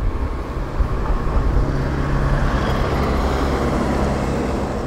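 A car driving past: engine hum and tyre noise swelling to a peak about halfway through, then fading.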